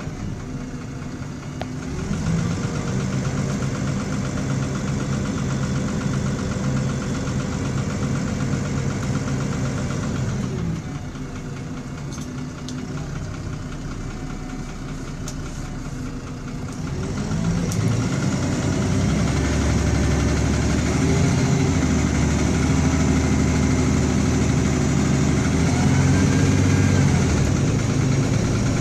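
Inside a MAN-chassis Enviro300 single-decker bus: its rattly diesel engine and driveline pull hard about two seconds in, ease off around ten seconds, then pull again from about seventeen seconds, louder, with the pitch rising and falling as it goes through the gears.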